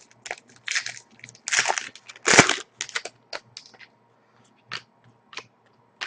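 2010–11 Panini Pinnacle hockey cards being slid and flipped through by hand: a run of short rustles and scrapes, loudest about two seconds in, thinning to a few light clicks.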